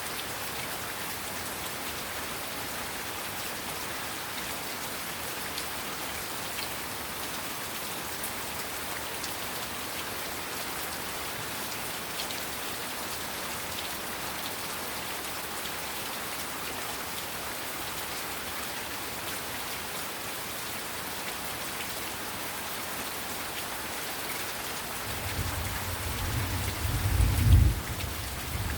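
Heavy rain falling steadily on surfaces, a dense even hiss with scattered drop patters. Near the end a low rumble of thunder builds, peaks briefly and then fades.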